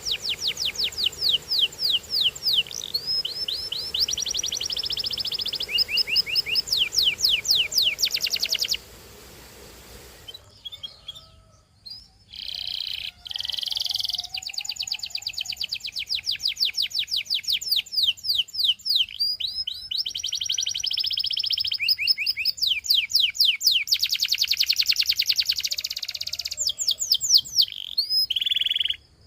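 Canary singing: long phrases of fast trills, each a rapid run of the same short sliding note repeated many times, switching from one trill to the next. The song breaks off about nine seconds in for a few seconds, then resumes and stops suddenly near the end.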